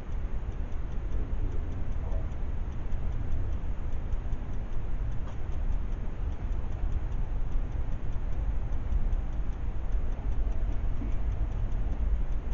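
Steady low background rumble with a faint, fast, regular ticking over it.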